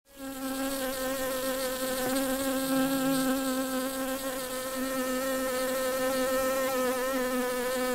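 A bee buzzing close by: a steady, even hum that wavers slightly in pitch.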